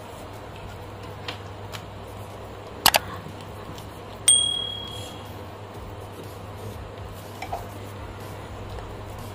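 Hands working spice paste onto a fish on a stainless steel plate: a sharp double knock about three seconds in, then a metallic ping just after four seconds that rings briefly as the steel plate or dish is struck, over a steady low hum.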